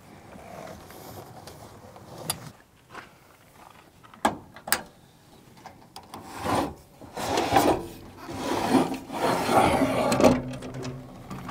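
A rooftop tent being handled: a few sharp clicks, then several seconds of loud rubbing and creaking as the tent's cover and folding base are worked by hand.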